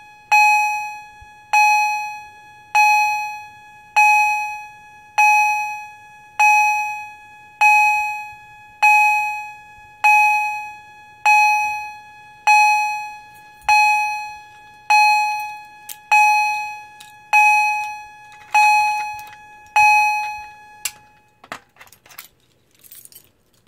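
Edwards 2455-B fire alarm chime on its low volume uncoded setting: a single chime tone struck repeatedly, about once every 1.2 seconds, each stroke ringing and dying away before the next. The strokes stop about 21 seconds in, followed by a few faint clicks.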